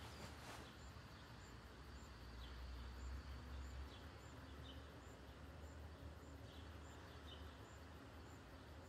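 Near silence: faint room ambience with a few faint bird chirps and a faint, even high tick about twice a second.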